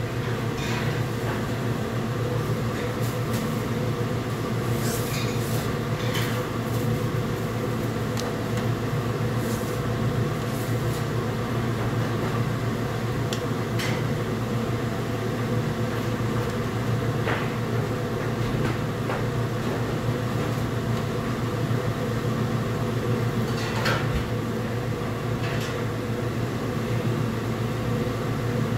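Steady low drone and rush from a commercial gas stove with a pot of water at a rolling boil. A few short metallic clinks are scattered through it, from steel tongs knocking against the pots.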